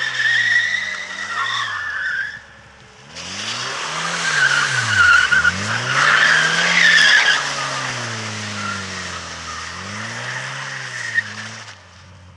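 Ford Sierra 2.0i's four-cylinder engine running on LPG, revving up and down again and again while the car slides in circles, its tyres squealing and skidding over sand-covered asphalt. The sound drops away briefly about two and a half seconds in, then comes back, and fades near the end.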